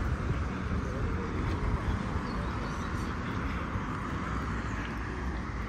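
Steady road traffic noise from cars driving round a roundabout.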